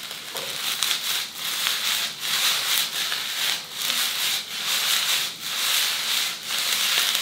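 Fried rice stir-frying in a Vitacraft 24 cm iron wok pan: a steady sizzle under rhythmic scraping and tossing strokes of a spatula through the rice, about two to three strokes a second.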